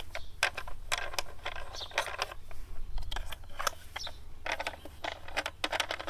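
Hand-held digital grain moisture meter crushing a sample of brown rice kernels in its sample cell: a continuous run of irregular sharp clicks.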